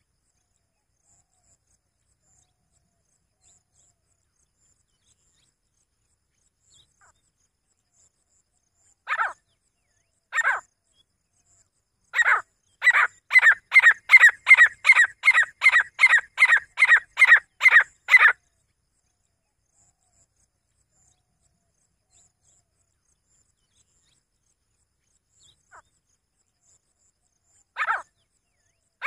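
Grey francolin calling: two single notes, then a rapid run of about sixteen notes at roughly three a second lasting some six seconds, then one more note near the end.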